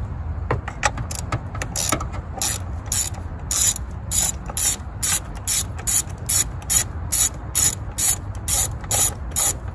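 A 10 mm ratchet clicking in quick, even back-strokes, about three a second, getting louder a few seconds in, as a nut on the car battery's fittings is run off.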